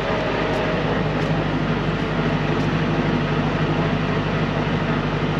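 Volvo semi truck's diesel engine running steadily, an even low hum.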